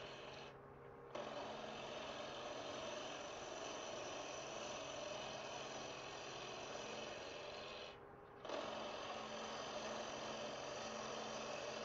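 Wood lathe running while a turning tool takes light cuts on spinning ash, a steady hiss of shavings over a faint motor hum. The cutting stops briefly twice, about half a second in and again near eight seconds.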